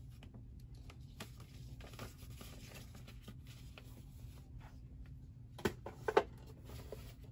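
Quiet room tone with a steady low hum and faint rustling and ticking from a handheld phone being moved, with two short, louder clicks about five and a half and six seconds in.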